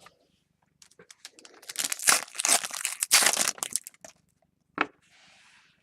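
Crinkling of a foil trading-card pack wrapper being handled and torn, for about three seconds, followed by a single sharp click.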